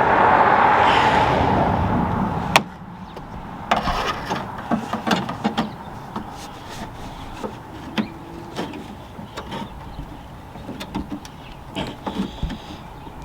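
Clicks, taps and light knocks of metal parts inside a car door as the door-lock cylinder's retaining clamp is worked loose. It opens with about two and a half seconds of loud rustling noise, ended by a sharp click.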